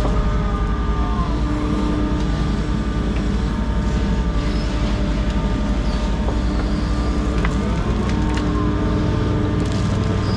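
Diesel engine of a compact earthmoving machine running steadily under work, with a few brief whines that glide up and down and a few sharp clicks.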